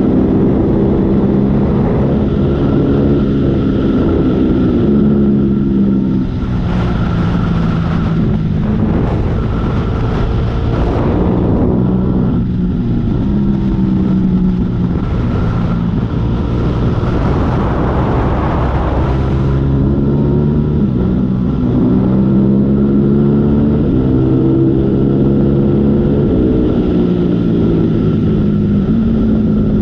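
Motorcycle engine under way, its pitch climbing and then dropping several times as it accelerates and shifts gears. Wind rushes over the microphone in two stretches near the middle.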